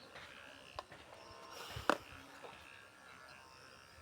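Two short sharp clicks about a second apart, the second one louder, over faint background noise.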